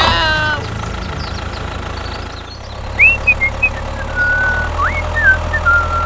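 A tractor engine running steadily at idle. About halfway through, a few short, high, whistle-like chirps and held tones sound over it.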